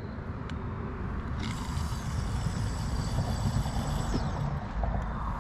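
Wind rumbling on the microphone as a spinning fishing reel is handled. For about three seconds in the middle, a steady high whir starts abruptly and then fades, the sound of the reel being worked.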